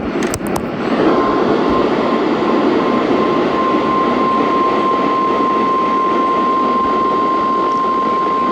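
NOAA Weather Radio 1050 Hz warning alarm tone sounding for the required weekly test, received over the air: one steady high tone over loud radio static, breaking up for the first couple of seconds and then held steady. A few sharp clicks come just before the tone starts.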